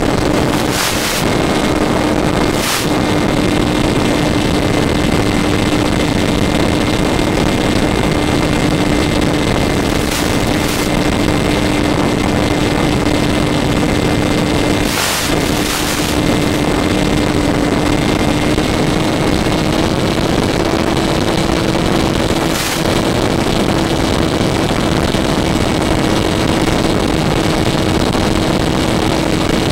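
RC airplane's motor and propeller running steadily in flight, heard from on board: a steady hum that creeps slightly higher in pitch in the second half, over a constant rushing hiss. A handful of brief sharp clicks break through.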